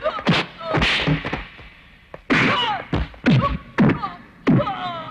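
Film fistfight sound effects: a string of sharp, heavy punch and kick thuds, about eight in five seconds, each followed by a man's short grunt or yell.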